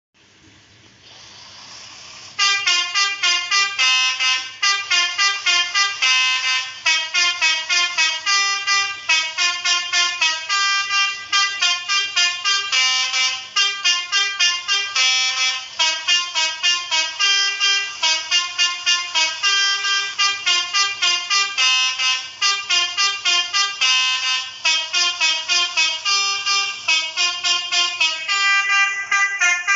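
Basuri bus horn, the multi-tone 'telolet' horn, playing a fast melody of short notes. A faint hiss swells for about two seconds before the notes start.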